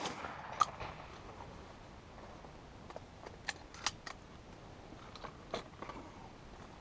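The tail of a shotgun shot dies away at the very start. Then come a series of short, sharp metallic clicks and clacks as the shotgun is handled and reloaded with cartridges: one about half a second in, a quick cluster around three to four seconds, and a couple more near five and a half seconds.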